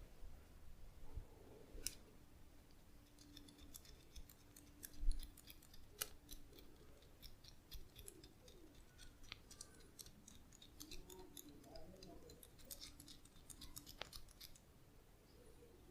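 Faint, sparse clicks and crackles of hands working over skin and hair during a massage, with a soft thump about five seconds in.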